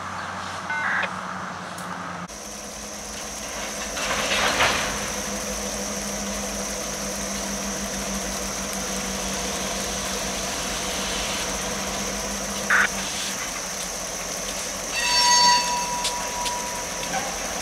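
Freight train of boxcars and tank cars rolling past: a steady rumble from about two seconds in, with a steady high tone over it. A short high-pitched tone sounds about fifteen seconds in.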